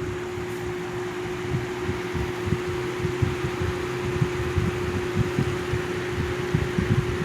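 Lasko 3733 plastic box fan running on high speed: a steady rush of air with one constant motor hum tone beneath it, and irregular low rumbles.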